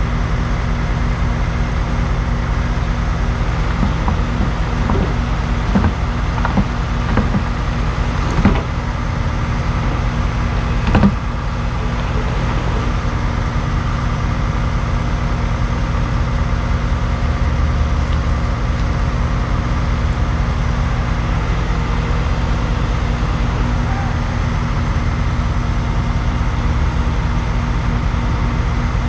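Dump truck's diesel engine running steadily, heard from inside the cab. A series of knocks and rattles comes between about four and eleven seconds in, the loudest near eleven seconds.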